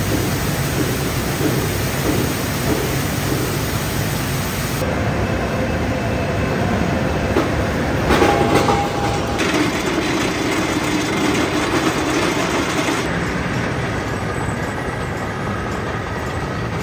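Steel rolling mill running: loud, steady machinery noise with clattering as hot steel bars travel along the roller line and through the roll stands. A louder clanking stretch comes about eight seconds in, and the noise shifts in character about five and thirteen seconds in.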